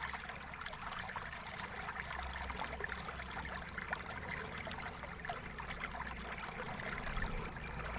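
Steady hissing background noise with many faint small clicks and taps from a screwdriver and tiny screws on a netbook's plastic bottom panel as the cover is unscrewed and lifted off.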